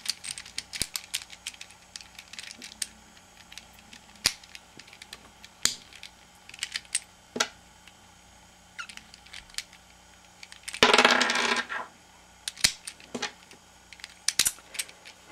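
Plastic clicks and clacks of a Holey Megaminx puzzle being handled, its pieces popped out, snapped back in and its layers turned, with a denser second-long clatter about eleven seconds in.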